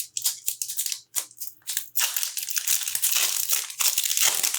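Plastic foil wrapper of a trading card pack crinkling and crumpling in the hands as the pack is opened, in quick, irregular bursts.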